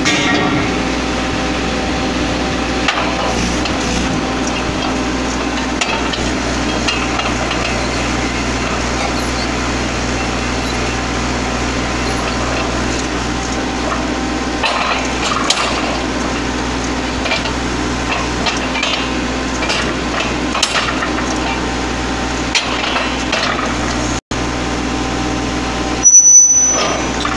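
Truck-mounted water-well drilling rig running steadily, with occasional metallic clicks and knocks from the drill pipe and rotary head. Near the end comes a short, loud high-pitched sound.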